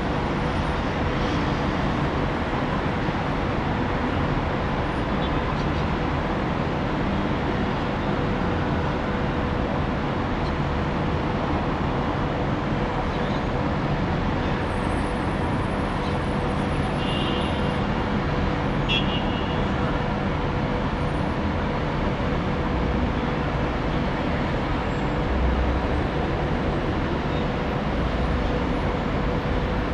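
Steady road traffic noise from a busy multi-lane road of cars and buses, a continuous even wash, with a couple of brief high-pitched sounds a little past the middle.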